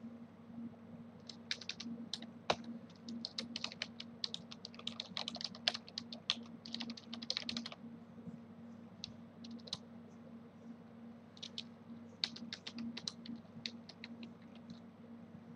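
Typing on a computer keyboard: runs of quick key clicks from about a second in to about eight seconds, a pause, then another run near the end. A steady low hum sits underneath.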